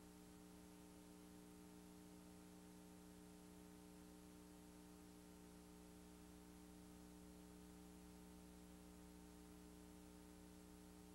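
Near silence: a faint, steady hum with a low hiss, unchanging throughout.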